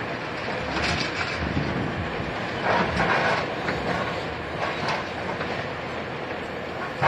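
Tracked excavator's hydraulic concrete crusher breaking up reinforced concrete rubble: the diesel engine runs steadily under irregular crunching and scraping of concrete and rebar. The crunches are loudest about a second in, around three seconds in and near five seconds.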